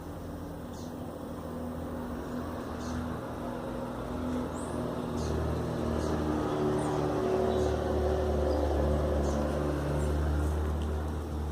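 A motor vehicle's engine humming, growing louder over several seconds and dropping away near the end, as a vehicle passing by would. Short high chirps, like small birds, sound now and then.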